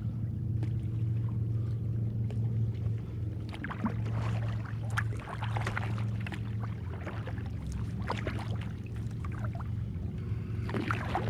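Kayak paddle dipping into calm water, with splashes and drips coming in bursts every few seconds over a steady low hum.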